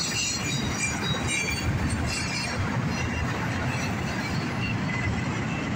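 Freight train cars rolling past at close range: a steady rumble of steel wheels on the rails, with short, faint high-pitched wheel squeals scattered through it.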